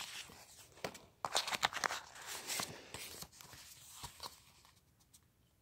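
Paper sticker sheets rustling and crinkling as they are handled: a run of short scratchy rustles and light clicks from about a second in, dying away over the last couple of seconds.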